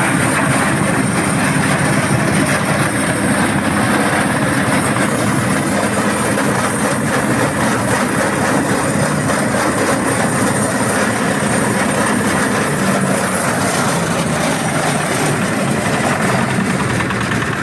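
Diesel-driven corn sheller running steadily: the 8 HP diesel engine's steady drone under the dense rushing noise of the machine at work.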